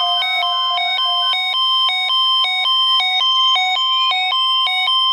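Weather alert radios sounding their alert alarms together: a rapid, evenly pulsing two-tone beeping, over which a siren-like tone rises slowly in pitch, signalling an incoming National Weather Service alert, here a flood watch.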